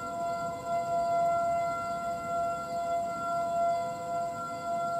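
Several distant outdoor warning sirens, Federal Signal STH-10s and Eclipse 8s, sounding steady alert tones together at different pitches. Their overlapping notes hold steady while the loudness slowly swells and fades.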